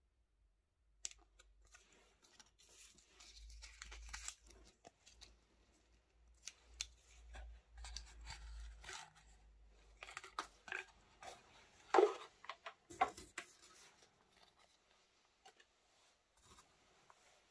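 Hands handling a kraft cardboard box and its wood-wool packing shred: irregular rustling, crinkling and scraping of card and dry shred, with a louder sharp rustle about twelve seconds in.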